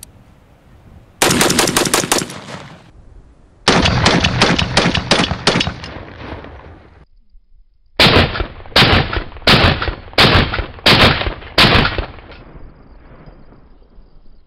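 Big Horn Armory AR500 rifle in .500 Auto Max emptying a magazine. Two quick strings of rapid shots, then seven separate shots about half a second apart, each with a short echo.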